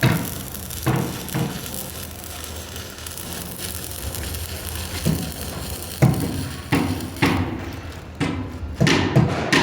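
Arc welding on a steel fire-line pipe: the arc's steady crackle and sizzle through the middle. Sharp metallic knocks come at the start and several more in the last few seconds.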